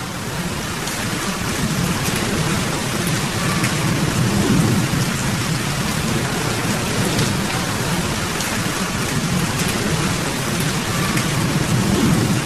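Heavy rain pouring steadily, with a low rumble of thunder that swells about four seconds in and again near the end.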